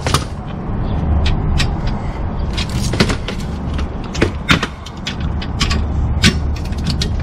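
Irregular sharp metallic clicks and clinks of a ratchet and socket being fitted to and turned on a Subaru WRX STI's rear differential plug, over a steady low hum.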